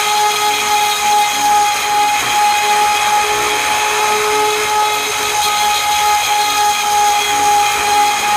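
Router on an MPCNC machine running with a steady whine as its end mill cuts a helical hole in aluminum stock. The bit is struggling in the cut.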